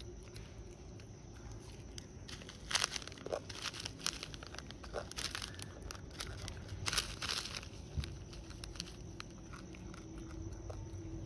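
Crinkly foil snack packet being crumpled and picked at by a macaque's fingers and mouth, in several bunches of crackling through the middle, then quieter near the end.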